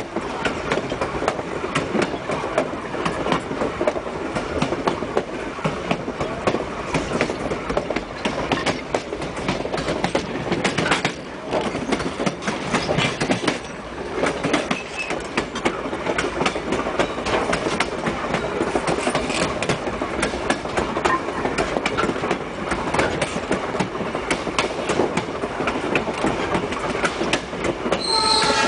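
Excursion train rolling along jointed track, its wheels clattering steadily over the rail joints, heard from the rear of the train.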